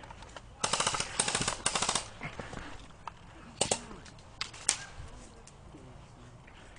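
Airsoft electric gun firing three quick full-auto bursts of rapid clicking shots in the first two seconds, followed by two sharp single cracks a second apart.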